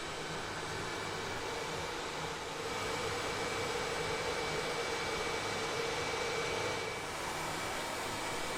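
Steady engine drone under a hiss of background noise, rising a little about three seconds in and dipping briefly about seven seconds in.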